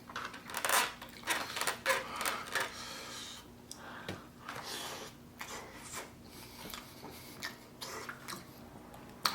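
Close-miked eating sounds: chewing with short, irregular wet clicks and rustles.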